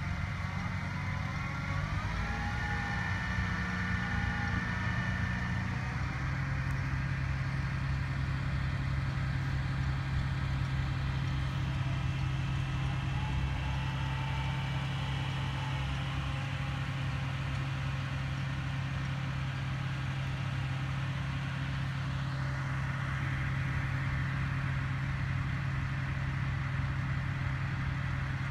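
Truck-mounted crane's engine running steadily with a low drone while it lifts a precast concrete foundation panel, with a higher whine rising and falling during the first few seconds.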